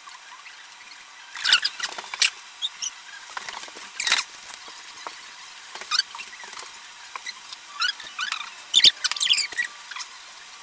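Scattered light clicks, taps and short squeaks of paintbrushes, glass bowls and utensils being handled on a tabletop, in irregular clusters with the loudest around two, four and nine seconds in.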